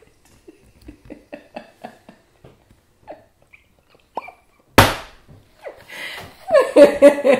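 A woman's stifled laughter: quiet breathy puffs, a single sharp knock about five seconds in, then loud open laughter near the end.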